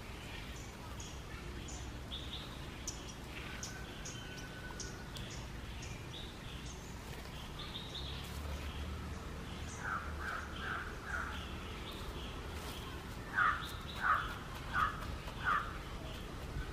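Birds calling outdoors: small birds chirp throughout. In the second half one bird gives two runs of four harsher calls, each about 0.7 s apart, and the last run is the loudest.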